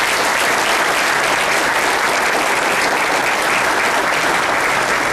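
Audience applauding: a steady round of clapping from many people.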